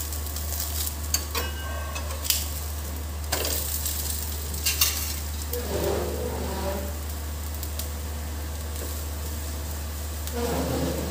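Vegetable gram-flour (besan) cheela sizzling in oil on a hot iron tawa, its second side cooking just after the flip. A metal spatula clicks against the tawa a few times, and scrapes and presses the cheela near the end.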